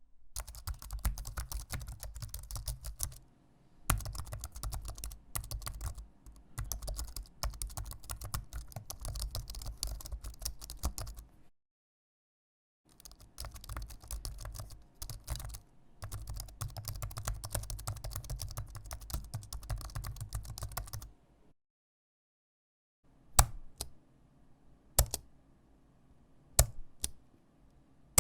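Typing on a mechanical computer keyboard: fast, dense runs of key clicks broken by short pauses and two silent gaps of a second or so. Near the end the typing gives way to single keystrokes about a second apart.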